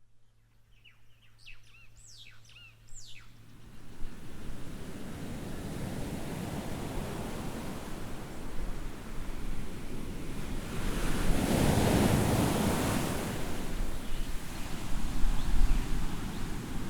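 Ocean surf washing in, with wind, building up after the first few seconds and swelling loudest about eleven seconds in as a bigger wave comes through. A few short bird chirps sound in the first three seconds.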